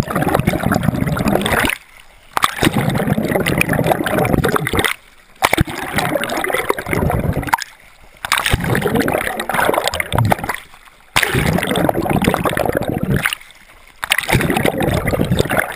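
Water splashing and rushing over a hand-held GoPro camera as a swimmer strokes through the sea, the camera dipping in and out of the water. The noise comes in long swells, each cut by a short quiet break, about every three seconds.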